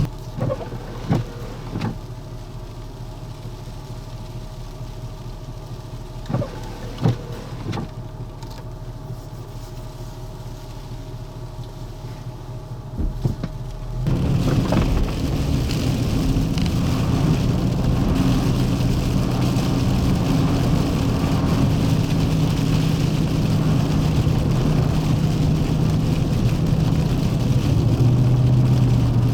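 A vehicle's engine running with road noise, with a few sharp knocks in the first half. About halfway it switches abruptly to a louder, steady engine hum.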